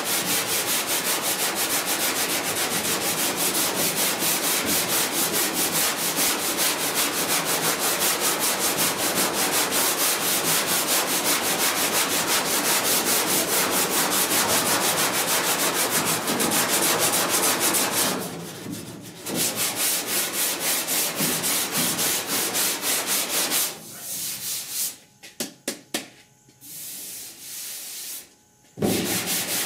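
Sandpaper on a hand sanding block rubbed back and forth over cured body filler on a 1966 Ford F100's steel cab panel, in fast, even strokes, feathering the edges of the filler. The strokes stop briefly about two-thirds of the way through, then come only in short, scattered scrapes for a few seconds before resuming near the end.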